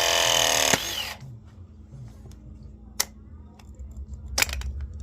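A Ridgid ProPress pressing tool's motor whines, its pitch sagging slightly as it finishes a press cycle. It stops abruptly with a clunk just under a second in. After that come a sharp click and then a quick cluster of clicks as the tool is handled, and the press cycle completing shows the tool is working again after its reset.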